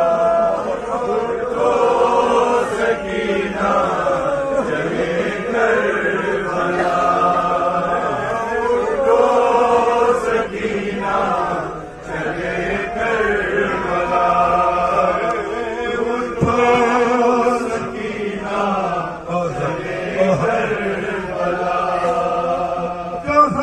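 A man chanting an Urdu noha, a mourning lament, into a microphone, singing long held melodic lines with short pauses for breath.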